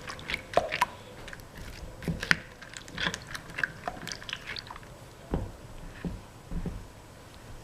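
Foam beads being stirred into clear glue slime: irregular wet squishing with crackling clicks, dense for the first few seconds and then thinning out to a few soft low thumps.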